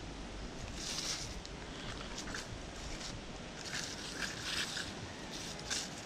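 Rustling and crunching in dry leaf litter, in short irregular bursts, over a low rumble of wind on the microphone.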